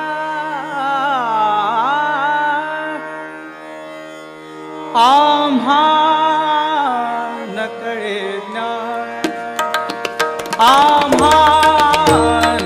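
Male voice singing a Marathi stage song (natya sangeet) live, with sweeping ornamented runs over sustained accompanying drone notes. About nine seconds in, tabla strokes come in under the singing.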